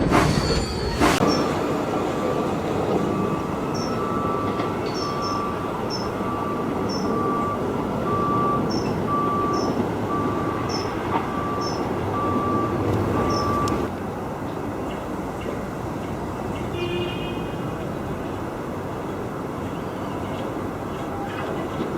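Sound effect of a moving train: a steady rolling rumble with a short high tone that repeats about once a second. The tone stops about two-thirds of the way in, and the rumble carries on slightly quieter.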